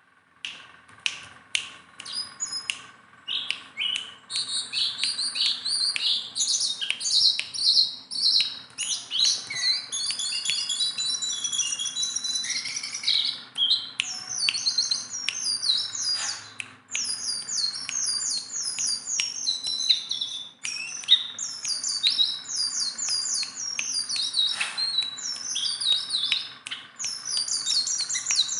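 A caged jongkangan songbird singing continuously: a fast stream of high chirps and chattering trills, with many short sharp clicking notes mixed in.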